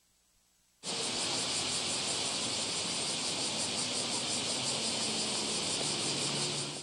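Summer cicada chorus: a steady, dense high buzz with a fast, even pulse over a faint low street hum. It starts suddenly about a second in, after near silence.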